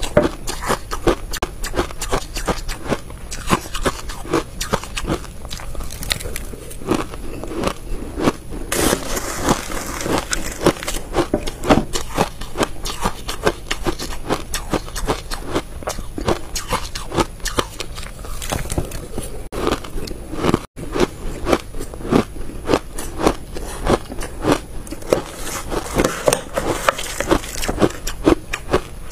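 Close-miked crunching and chewing of crushed ice coated in frozen matcha powder, a dense, continuous run of crisp cracks and crackles from bite after bite.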